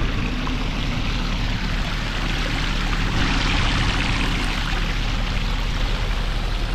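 Small waterfall rushing steadily, with a faint low hum underneath.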